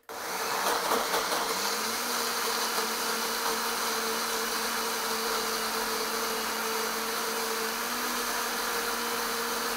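Countertop blender switched on and running at high speed, chopping soaked cashews, dates, red bell pepper and tomato with a rougher, choppy sound for the first second or so. It then settles into a steady whine as the mix turns smooth.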